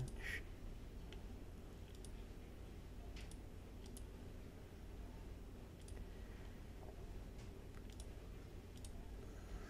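Faint computer mouse clicks, one every second or two, over a steady low background noise.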